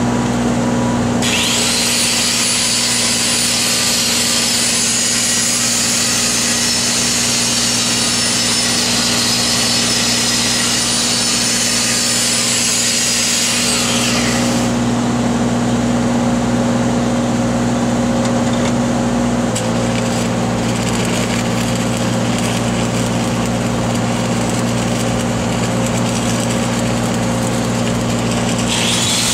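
Engine-driven stick welder running steadily. From about a second in until about halfway, a loud high-pitched hiss with a faint whine sits over it, then stops, leaving crackling metalwork noise. The engine note shifts slightly about two-thirds of the way in.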